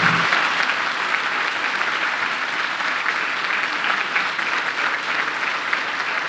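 Audience applauding, many hands clapping steadily, loudest at the start.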